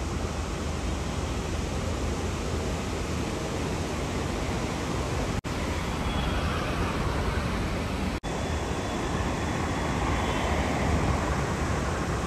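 Steady rushing wind and road noise from riding a scooter, with two momentary gaps where the sound cuts out about five and eight seconds in.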